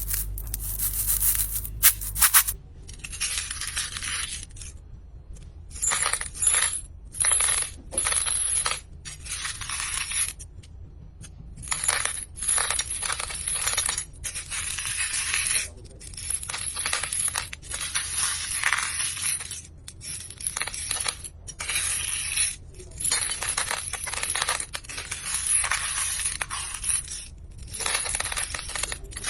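Coins pouring and clinking in repeated bursts of a second or so with short pauses between, after a brief low hum and a few clicks at the start.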